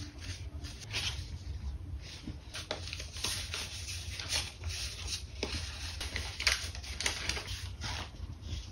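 Stack of instant-film and printed photo cards handled by hand: shuffled, flicked through and laid down on a paper journal page, a run of irregular light rustles, flicks and taps over a low steady hum.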